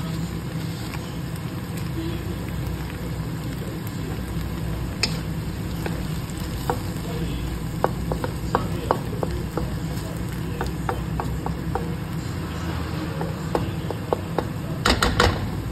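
Cauliflower florets and green beans sizzling in a wok as a wooden spatula stirs them, over a steady low hum. Light clicks and taps of the spatula against the pan begin about six seconds in, with a cluster of louder knocks near the end.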